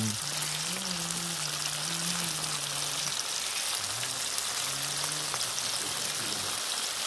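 Chopped shallots, chillies and garlic frying in oil in a wok, a steady sizzle.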